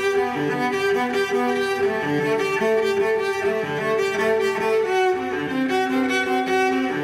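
Background music of bowed strings, held notes that move to new chords every few seconds.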